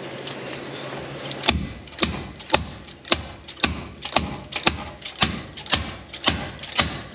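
Ratchet wrench clicking about twice a second as it turns a puller's forcing screw, working a heated, tight-fitting part off the back of a small-block Chevy race engine; the clicking starts about a second and a half in.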